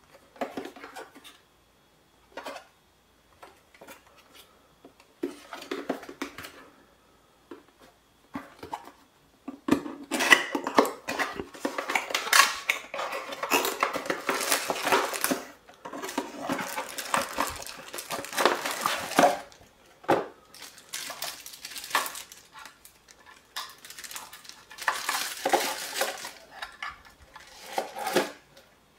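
Unboxing handling noise: a cardboard box of an LED downlight is opened, with scattered taps and scrapes for the first ten seconds or so, then a long stretch of dense crinkling and rustling as the light and its driver are pulled out of plastic packaging, with more bouts of rustling near the end.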